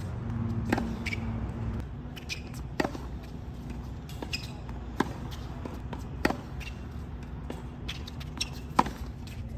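Tennis rally on a hard court: a racket strikes the ball in five sharp pocks about two seconds apart, with fainter hits and bounces between them. A steady low hum runs underneath.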